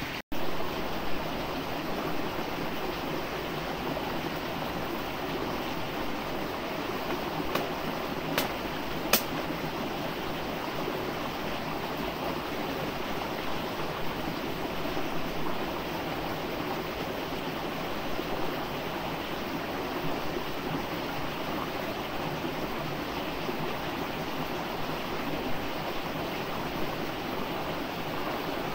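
Stream water flowing steadily, an even rushing wash, with a few light clicks about eight or nine seconds in.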